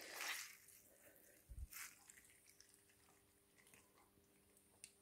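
Near silence, apart from a brief trickle and drip of water at the start as soaked gelatin sheets are squeezed out over a plastic bowl, and a faint soft bump about a second and a half in.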